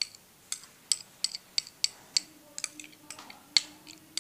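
Irregular sharp clinks and taps, about three a second, of a spoon and a glass bowl knocking against each other and the rim of a small jar as homemade lip balm is scraped into it. A faint low hum comes in about halfway.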